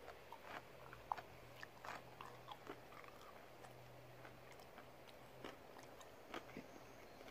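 Near silence, broken by faint, irregular small clicks and crackles.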